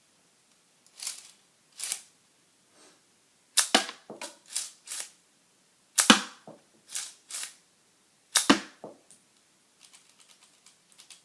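Sharp plastic clacks and snaps from a K'nex slide-action toy pistol being worked, about a dozen at irregular intervals, the loudest three with a dull knock under them. They end in a run of faint light ticks.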